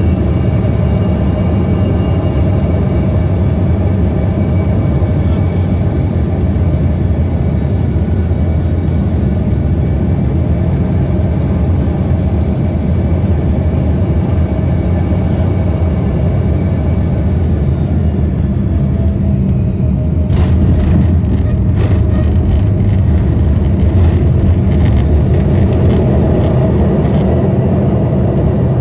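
Airliner cabin noise heard from a window seat: a loud, steady rumble of engines and airflow with a faint high whine that falls in pitch about two-thirds of the way through, followed by a run of short knocks and rattles.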